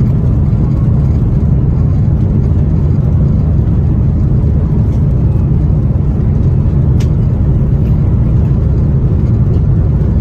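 Steady low rumble inside an airliner's cabin as it taxis, with engine noise and the rolling of the landing gear heard over the wing. A faint click about seven seconds in.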